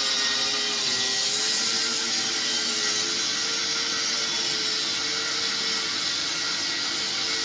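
Electric power tool running steadily and working steel, with a dense hissing grind and a steady, slightly wavering motor whine.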